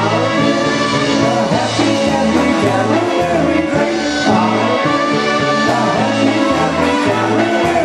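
Polka band playing live, loud and steady, over a bass line that steps between low notes on a regular bouncing beat.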